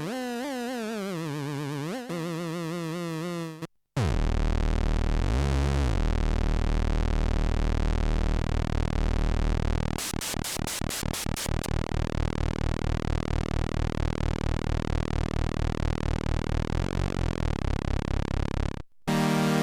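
Arturia MicroFreak synthesizer presets played in turn. First comes a pitched tone with a wide wavering vibrato that slides downward and stops just under four seconds in. After a short gap, a dense, bass-heavy buzzing sound plays, turning into a fast pulsing rhythm about ten seconds in. Near the end another short gap leads into a new preset.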